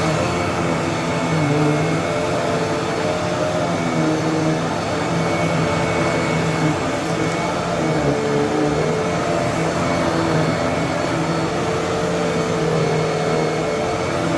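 Vacuum cleaner running steadily, a continuous motor hum and airflow rush whose pitch wavers slightly as it is pushed.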